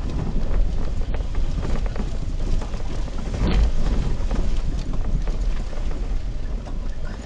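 Off-road vehicle driving over a rough, stony dirt track, heard from inside the cabin: a steady low rumble of engine and tyres with frequent knocks and rattles from the body and suspension over the stones.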